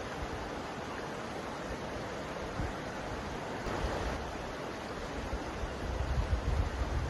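Mountain river flowing, a steady rush of water over its bed. A low rumble builds up near the end.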